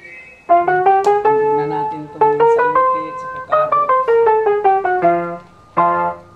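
Background music: a piano playing a melody of single notes and chords, starting about half a second in.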